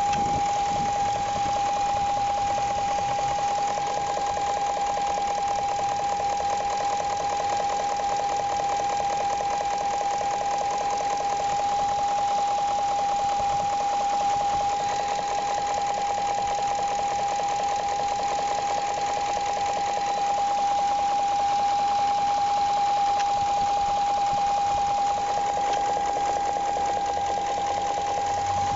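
2001 BMW 740iL's 4.4-litre V8 running steadily with a fast, light, even knocking and a steady high-pitched tone over it. The knock is not very loud, and its cause is unknown to the owner, who says the car runs totally fine.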